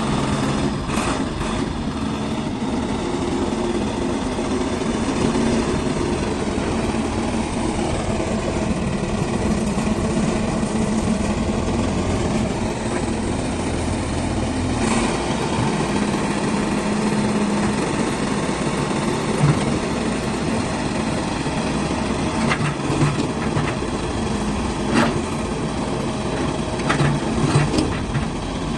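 Caterpillar 416 backhoe loader's diesel engine running steadily, with a few sharp knocks in the second half.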